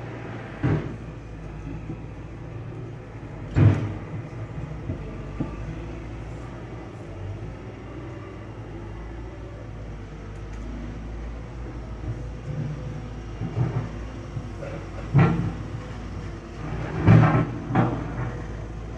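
Heavy trucks running and moving through a yard: a steady low diesel rumble, with several sharp knocks, twice early on and twice near the end.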